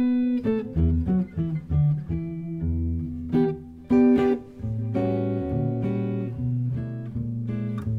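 Electric guitar played through its humbucker pickup for a jazz tone. Short picked notes and chords come first, then a chord rings on from about halfway through and changes near the end.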